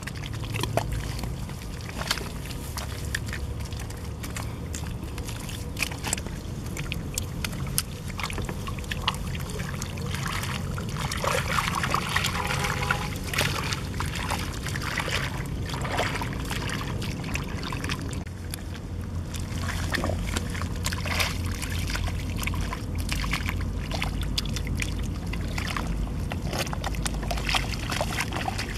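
Bare hands scooping and squelching wet mud and muddy water, with irregular sloshing, splashing and wet slaps over a steady low rumble.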